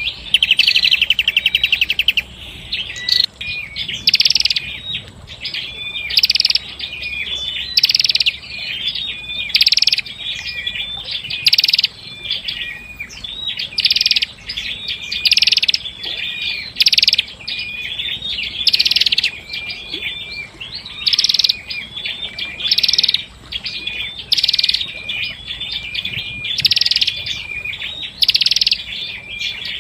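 A prenjak kepala merah singing. It opens with a fast, even trill, then repeats the same short phrase of quick chips with a louder, harsher note about every two seconds.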